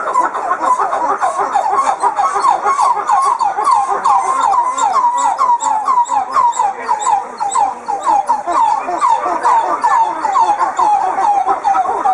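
Coppery titi monkeys singing their morning group song: a fast, unbroken series of short pitched notes, about four a second, each bending in pitch. The song serves to keep the group together.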